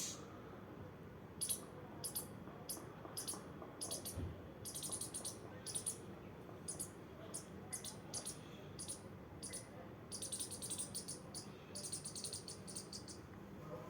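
Squirrel giving short, high-pitched squeaks, one or two a second at first, then quick runs of them about ten seconds in.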